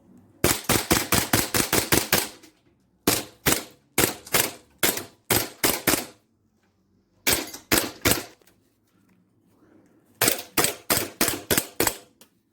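ASG CZ P-09 green gas blowback airsoft pistol being test-fired: sharp cracks of the shots and the slide cycling. It opens with a fast run of about a dozen shots, then paired and spaced shots, a short run, and another quick run near the end, with pauses between the groups.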